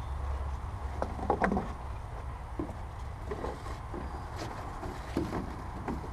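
Light knocks and scrapes on a wooden deck as an expandable pocket hose is handled and dragged about, the loudest cluster about a second and a half in, over a steady low hum.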